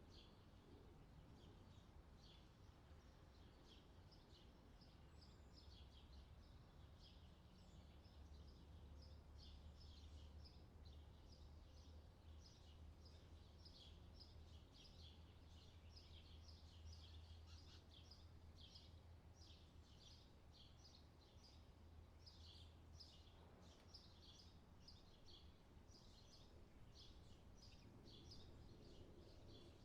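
Faint outdoor nature ambience: many small birds chirping constantly in quick, overlapping high notes, over a low steady rumble.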